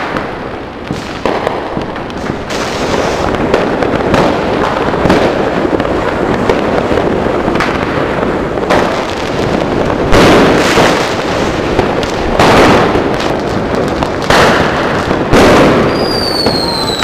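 New Year's fireworks going off at close range: a steady hiss and crackle, with firework fountains among the sources, cut through by many loud bangs. Near the end a whistling firework slides down in pitch.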